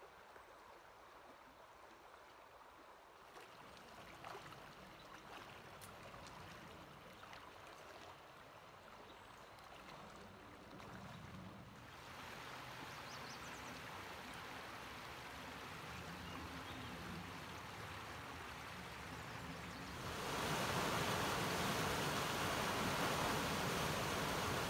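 Steady rushing of running stream water, stepping up in loudness a few times, with a much louder rush from about 20 seconds in.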